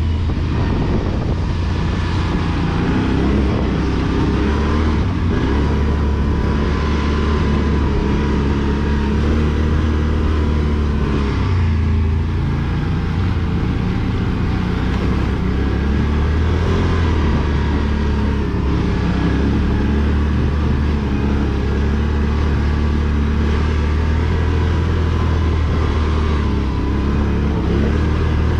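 ATV engine running under way, a steady low rumble with its pitch rising and falling as the throttle changes.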